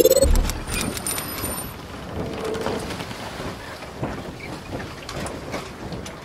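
Logo-intro sound effect: a deep boom right at the start, then a rain-like noise with scattered clicks and a brief high ringing about a second in.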